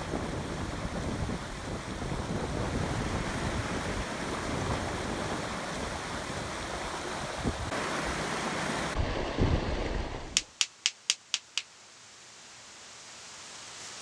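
Mountain stream rushing over rocks. About ten and a half seconds in it gives way to quieter surroundings and six sharp clicks of stone striking stone, about four a second.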